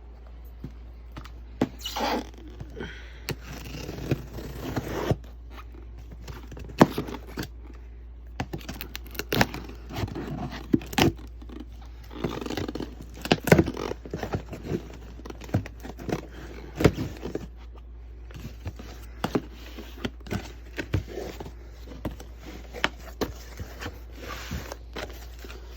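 Parts and packaging being handled during an unboxing: irregular scrapes, knocks, clicks and rustles as the kit's pieces are moved and taken out.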